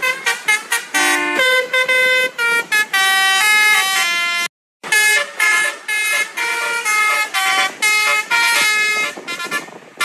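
Basuri-style multi-tone bus horn sound from a phone horn app, played as a quick melody of short stepping horn notes. It cuts out for a moment about halfway, then resumes with a different tune.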